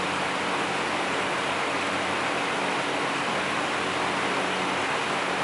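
Steady, even hiss of background noise with a faint low hum underneath.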